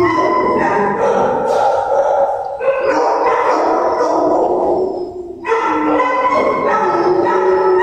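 Shelter dogs barking and howling in their kennels, several voices overlapping, with short lulls about two and a half and five seconds in.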